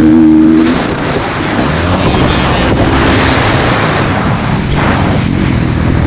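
Motocross bike engine running hard under throttle, its pitch shifting as the rider works the throttle and gears; it eases briefly about a second in, then pulls again.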